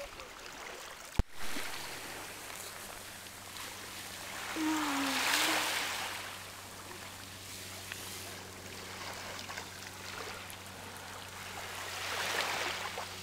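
Small Baltic Sea waves washing onto a stony, shell-strewn shore, swelling up twice. A sharp click comes about a second in, and a steady low hum runs under the water from then on.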